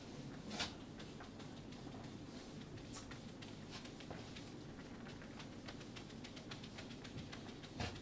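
Marker writing on a whiteboard: faint scattered taps and short scrapes, with two louder clicks, one about half a second in and one at the end, over quiet room hum.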